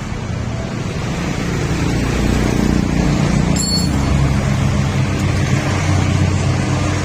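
A motor vehicle engine running steadily, growing a little louder about two seconds in, with a single light metallic clink partway through.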